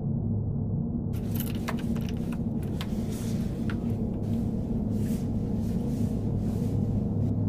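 A low, steady, ominous rumbling drone, the kind of sound bed laid under a horror film, with faint scattered clicks and taps over it.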